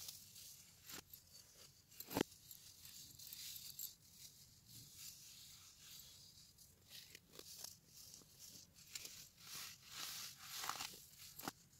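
Dyed baking soda crunching and crumbling between fingers: a run of soft, dry crackles, with one sharper crunch about two seconds in.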